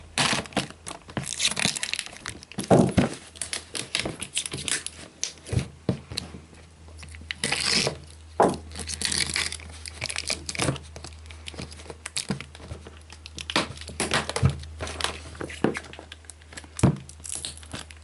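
Packaging being torn open and crumpled by hand: irregular rustling and tearing with sharp clicks and knocks as the wrapping is pulled off.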